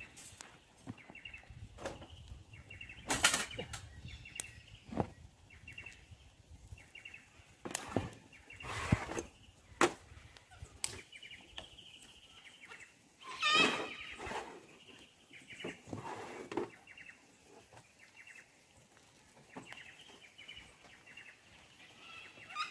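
Small wood fire crackling in a portable steel fire pit, with irregular knocks and clatter as sticks and a wire grill grate are handled on it; a handful of louder knocks stand out. Birds chirp faintly in the background.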